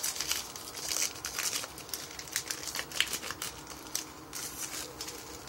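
Foil wrapper of a Yu-Gi-Oh! booster pack being torn open and crinkled in the hands, a run of crackly tearing and rustling that thins out near the end.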